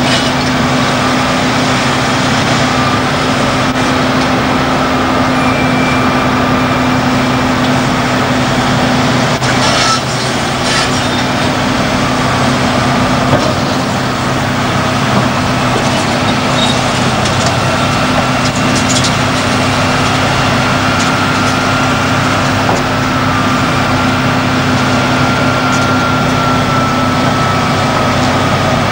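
Diesel engine of a Liebherr R992 hydraulic excavator running steadily under load as it digs and loads rock, with scattered clatter and knocks of rock. The level dips briefly about ten seconds in.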